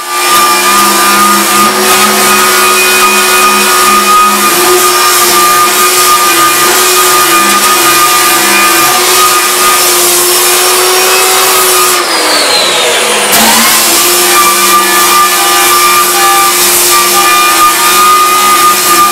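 Power tool's electric motor running at high speed, a steady whine over a hiss. About twelve seconds in the pitch drops briefly and comes back up, as if the motor slows under load, then it runs on steadily.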